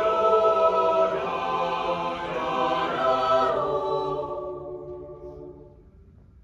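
Mixed high school choir singing sustained chords. The sound fades away over the last two seconds to near silence.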